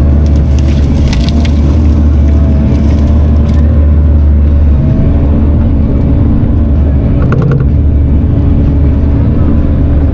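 Diesel engine of compact earthmoving equipment running loud and steady close to the microphone. The engine note shifts about five seconds in, and there are a few short metal rattles.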